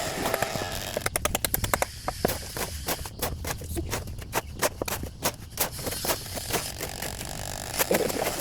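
Light, irregular taps and scrapes, about two to four a second, of hand tools working concrete or mortar.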